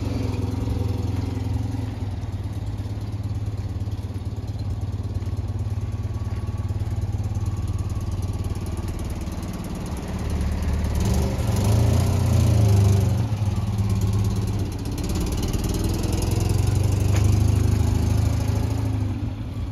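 Citroën 2CV's 602 cc air-cooled flat-twin engine idling steadily, swelling louder twice, a little past halfway and again near the end.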